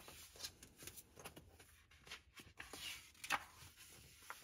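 Pages of a large picture book being turned and handled: soft paper rustles and light flaps, with one louder page flap about three seconds in.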